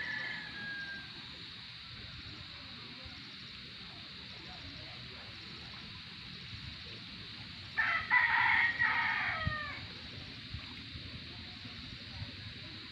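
A rooster crows once about eight seconds in, a call of about two seconds that drops in pitch at the end, over a steady hiss. A brief, high, falling call sounds right at the start.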